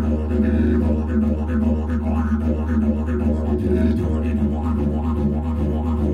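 Background didgeridoo music: a steady low drone with rhythmic pulsing overtones above it.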